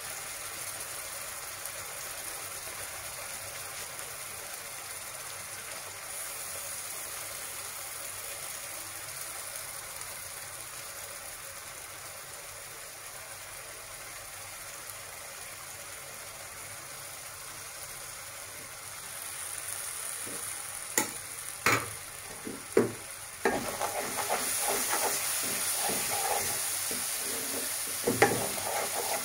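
Chopped onion and tomato frying in hot oil in a pan, a steady sizzle. About twenty seconds in a spatula starts stirring, knocking and scraping against the pan, and the sizzle grows louder.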